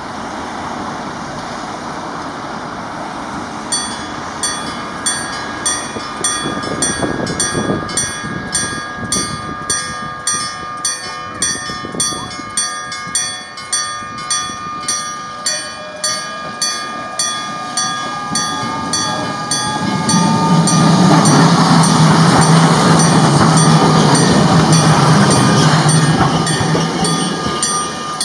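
Level-crossing warning bell starts a few seconds in, ringing in a steady repeated ding a little under twice a second, while a rising whine builds. About twenty seconds in, a Randen (Keifuku Electric Railroad) tram passes over the crossing: a loud rumble for about seven seconds that drowns the bell, which returns faintly as the tram clears.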